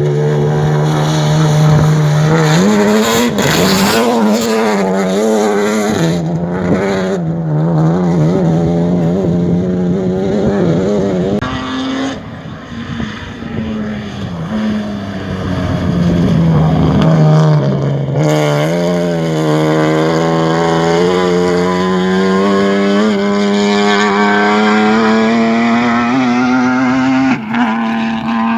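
BMW M3 E36 race car's straight-six engine running hard. Its pitch rises and drops in steps through gear changes, falls away and goes quieter about twelve seconds in, then climbs steadily under load again for most of the rest.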